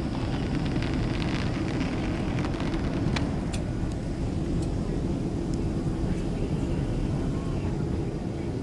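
Steady cabin noise of a Boeing 767-300 in flight, heard from a seat: a low, even rumble of engines and airflow, with a few faint ticks and rattles on top.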